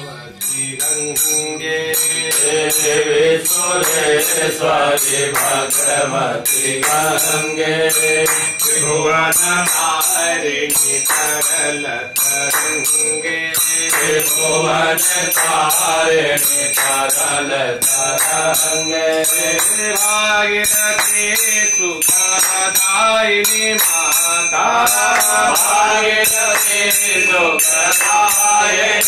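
Hindu devotional music: mantra-like chanted singing over a steady percussive beat.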